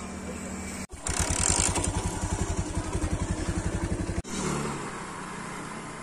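A small motorcycle engine running with a fast, even chugging pulse for about three seconds, cutting in and out abruptly.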